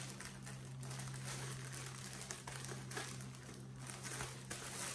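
Packaging crinkling and rustling in quick, irregular crackles as it is handled and unwrapped.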